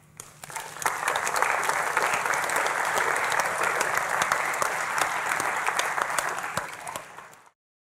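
Audience applauding: many hands clapping, swelling in within the first second, holding steady, then cut off abruptly near the end.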